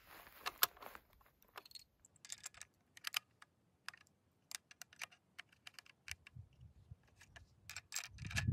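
Irregular sharp clicks and clinks of .300 Win Mag cartridges being pressed one by one into a bolt-action hunting rifle's magazine, with a low rumble near the end.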